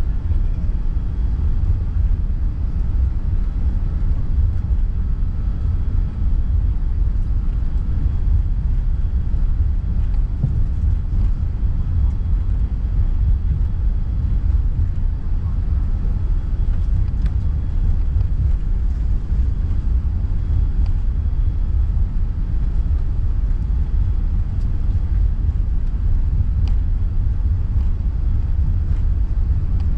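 Steady low rumble inside the cabin of a British Airways Airbus A380, the noise of its Rolls-Royce Trent 900 engines and the airliner's movement heard from a passenger seat around takeoff.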